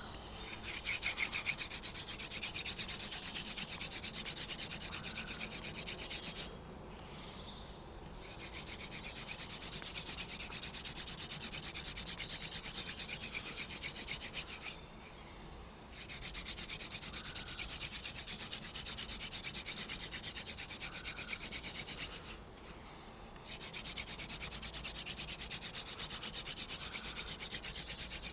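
Wooden hand-drill spindle spun between the palms, grinding into a wooden hearth board with a fast, rasping rub. It comes in four long bouts with brief pauses of about a second between them.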